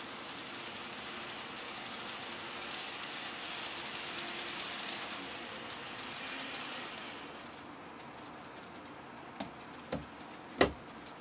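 N gauge model trains running on the layout: a steady hiss of the trains on the track that drops away after about seven seconds. Three sharp clicks follow near the end, the last one the loudest.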